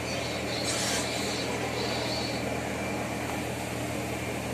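Steady mechanical hum of print-factory machinery running, with a brief hiss about a second in.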